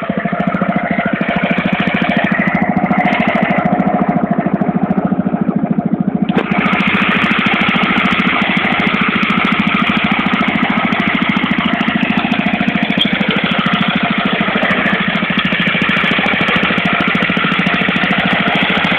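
Mowett Mustang 5 hp ride-on mower's small single-cylinder engine running steadily as the mower is driven, a fast even putter. About six seconds in the sound turns suddenly harsher and brighter.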